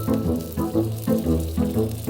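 Background music: pitched instrument notes over a bass line with a steady beat.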